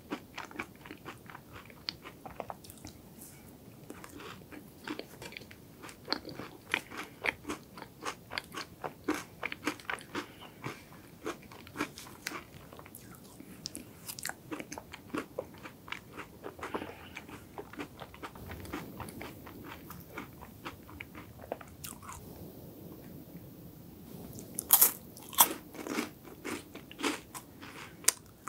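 Close-miked crunchy chewing of a wafer ice cream cake, an irregular run of crisp crackles throughout. Near the end come several louder, sharper crunches as a crisp piece is bitten.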